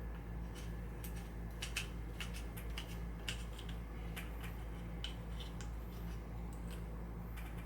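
Light, irregular clicks and taps of small tools and parts being handled during bench work, over a steady low hum.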